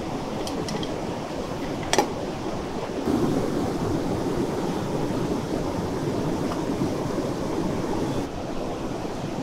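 Steady rushing of a mountain river, louder from about three seconds in until shortly before the end. A single sharp knock about two seconds in.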